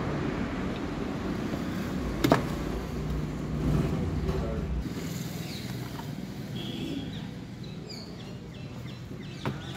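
New diesel fuel filter element being handled and pushed onto its plastic housing cap, with one sharp plastic click about two seconds in as it seats. A steady low rumble in the background drops away about halfway through.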